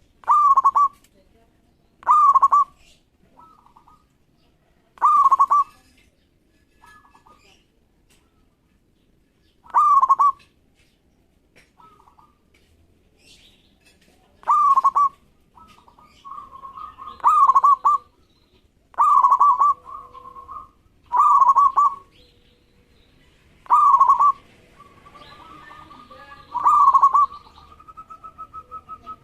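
Zebra dove (perkutut) cooing: about ten short, rattling trilled coos, repeated every two to five seconds and coming faster in the second half. A fainter steady whistle-like tone runs between the calls in the second half.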